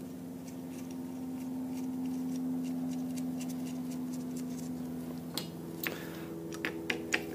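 A steady low background hum. About five seconds in, a series of light, sharp clicks begins, from small nuts, washers and a hand tool being handled on the ignition terminal studs.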